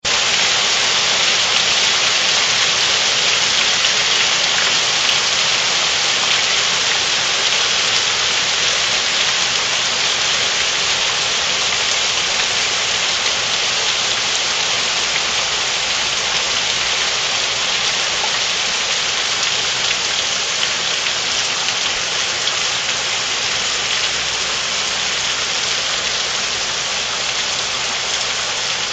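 Heavy rain pouring steadily onto leaves, lawn and a wooden deck: a dense, even hiss with no thunder, growing a little quieter toward the end.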